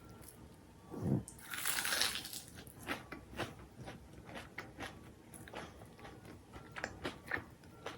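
Close-up eating sounds: a big crunching bite into crisp food about a second and a half in, followed by a run of short, sharp crunches as it is chewed.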